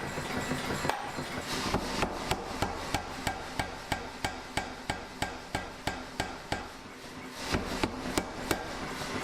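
Hammer blows on a hot mild-steel bar on an anvil while it is being forged: a steady run of sharp ringing strikes, about three a second, that stops briefly near the end and then picks up again for a few more blows.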